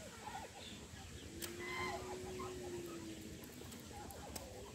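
Faint farmyard poultry calls: scattered short clucks and chirps, with one long steady low note about a second in that lasts about two seconds.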